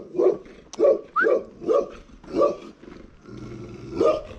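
A dog barking repeatedly, about two barks a second, then a pause and one more bark near the end.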